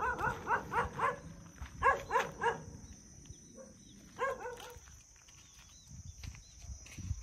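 A dog barking in runs of short barks: about five quick barks at the start, three more about two seconds in, and two more a little after four seconds.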